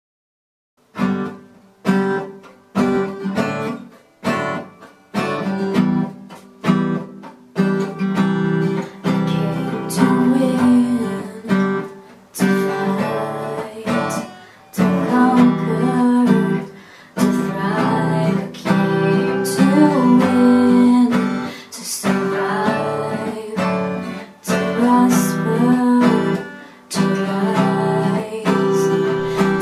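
Acoustic guitar strummed in chords, starting about a second in with separate strokes that ring and fade, then settling into a steadier strumming rhythm.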